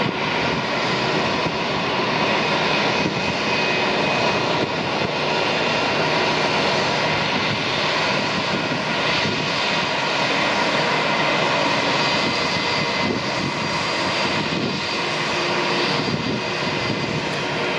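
Airbus A319 jet engines running steadily at taxi power: an even rushing noise with faint steady whining tones in it.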